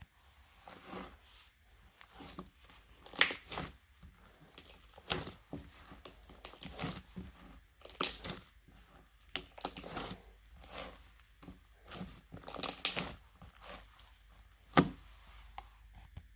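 Slime being squished and stretched by hand, making irregular crackling and popping sounds, with a few sharper pops.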